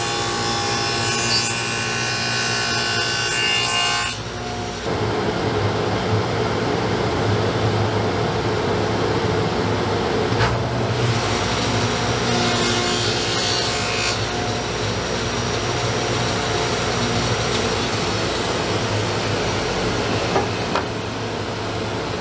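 Delta table saw with a dado stack cutting dados and rabbets in plywood. For about the first four seconds there is a whining cut with several steady tones, which stops abruptly; after that the saw runs on steadily.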